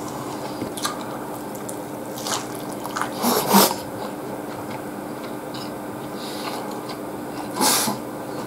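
Close-miked wet eating sounds of a person eating katsudon with chopsticks: chewing and sucking food in, with short slurps, the loudest about three and a half and seven and a half seconds in.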